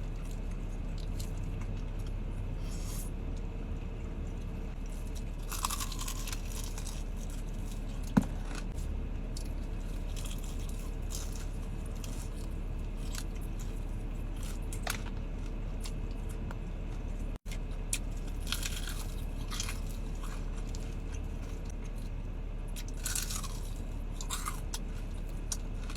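Someone biting and chewing crispy fried chicken, crunching now and then, with one sharp click about eight seconds in. A steady low hum runs underneath.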